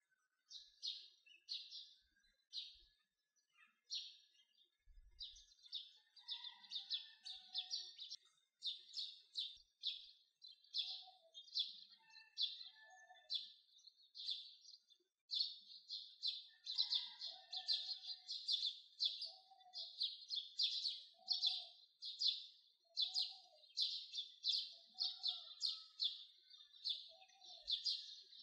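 Birds chirping: quick, high chirps several a second throughout, joined from about halfway by a lower, falling note repeated roughly once a second.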